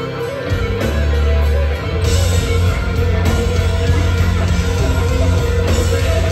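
A live rock band playing an instrumental: lead electric guitar over bass and drums, heard through the hall's PA. The band gets fuller and brighter about two seconds in.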